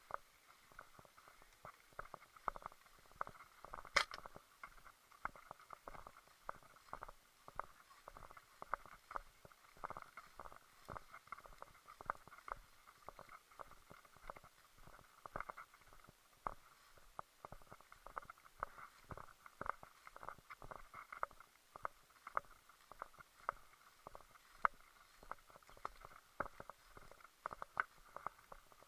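Faint, irregular clicks and knocks, a few a second, with one sharper click about four seconds in.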